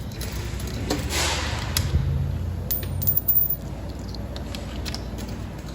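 Claw machine running: a low motor hum with scattered metallic clicks and clatters, busiest about three seconds in.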